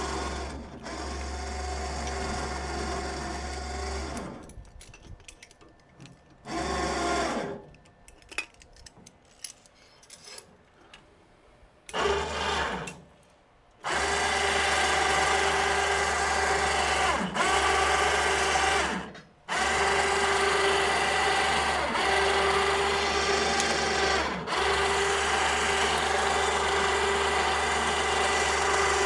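12 V electric winch motor of a truck-mounted crane running with a steady whine. It runs for about four seconds, then starts and stops in short bursts with scattered clicks and rattles between them, then runs steadily for the last half, breaking off briefly three times.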